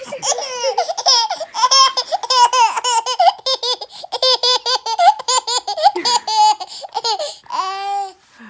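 Eleven-month-old baby laughing hard while being tickled: a quick run of high-pitched laugh bursts, several a second, ending on a longer drawn-out laugh near the end.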